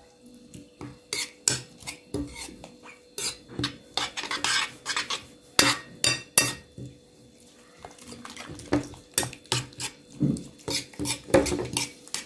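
Metal spoon stirring and beating eggs with chopped tomato and parsley in a ceramic bowl: repeated, irregular clinks of the spoon against the bowl.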